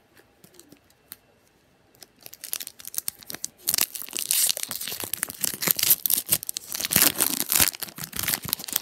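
A Pokémon trading card booster pack's foil wrapper being torn open and crinkled. Faint crackles at first, turning loud and continuous from about four seconds in.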